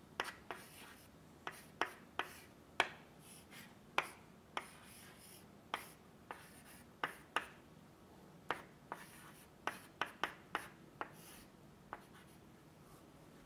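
Chalk writing on a blackboard: irregular sharp taps as the chalk meets the board, some followed by short scratching strokes.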